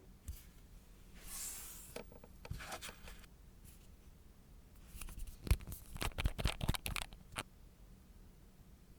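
Close-up handling noises of nail-art work: a brief rustle or tearing hiss, then scattered clicks, then a quick run of sharp clicks and taps from small tools and materials on a work surface.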